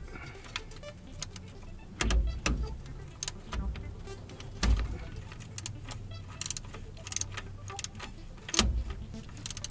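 Hand-tool work on a tight 15 mm shift-linkage bolt under a truck: irregular metallic clicks and clinks, with a few heavier knocks about two seconds in, near the middle and near the end.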